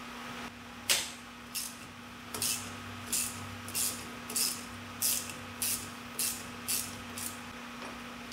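Hand ratchet wrench clicking through about ten strokes at a steady pace, roughly one every two-thirds of a second, loosening the mounting bolts of a 2000 Dodge Ram's A/C compressor. A single sharper click comes about a second in.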